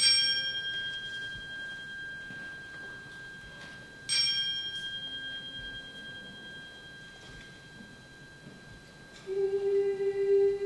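A crotale (tuned antique cymbal) struck twice, about four seconds apart, each strike giving a bright, high ringing tone that dies away slowly. Near the end a steady held note comes in.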